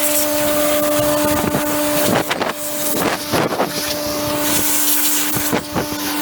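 Compressed-air blow gun hissing in repeated short blasts as chaff and dust are blown off a baler, over the steady hum of a Hydrovane rotary-vane air compressor running.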